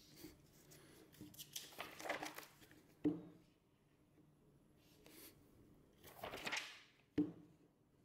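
A flat fridge magnet and a smartphone are slid across a tabletop by hand, making a rubbing scrape. This happens twice, and each scrape ends in a sharp clack as the pieces are set down against each other.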